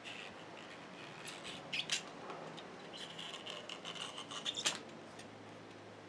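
Knife blade cutting and scraping along the edge of a sandal's new sole, trimming off the excess in several rasping strokes, the longest near the middle.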